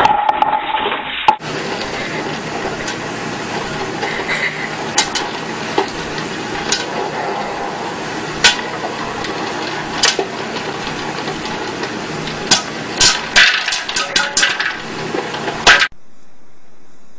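Popcorn popping in a pot under an upturned glass bowl: a steady sizzle of hot oil with irregular sharp pops, coming thicker and faster near the end. It cuts off suddenly, and a fainter steady hiss follows.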